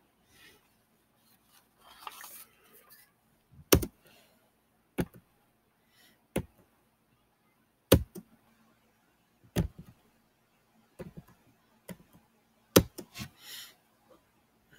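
About a dozen sharp, irregularly spaced clicks and taps at a computer, roughly one every second or so, the kind made by a mouse and keyboard, in a small room. There is a soft rustle about two seconds in and again near the end.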